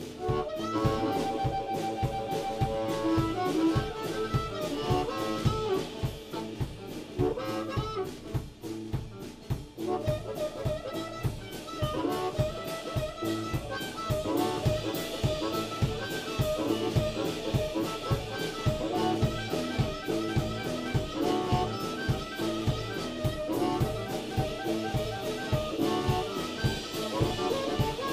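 Live blues band: harmonica playing held and bent notes over electric guitar, electric bass and a drum kit keeping a steady beat.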